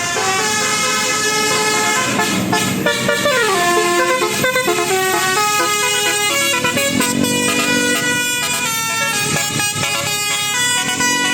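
Indonesian bus 'telolet' multi-tone horn playing a melody: a run of stepped horn notes with a few downward slides in pitch, sounding without a break.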